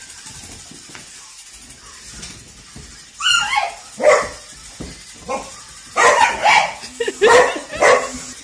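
English Springer Spaniel barking and yipping in short, loud bursts at a toy ball, starting about three seconds in and coming faster near the end: excited play barking.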